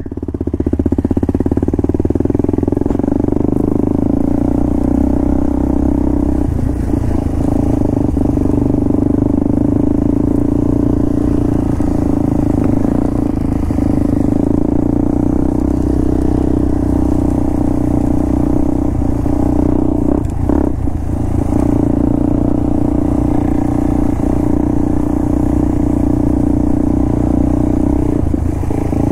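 Vehicle engine running steadily under way, a loud even drone with a few brief dips in the engine note, the clearest about two-thirds of the way in.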